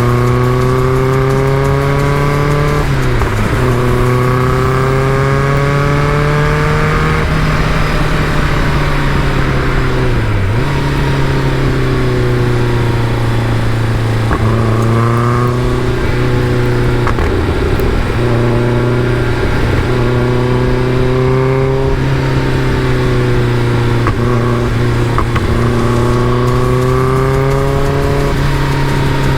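Caterham Super Seven sports car engine running under load. Its pitch climbs steadily, then drops sharply, several times over.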